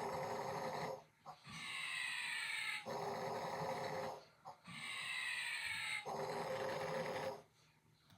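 Snoring in an even rhythm, about one snore every three seconds: each breath has a whistling part that falls in pitch, followed by a rougher buzzing part. The snoring stops about seven and a half seconds in.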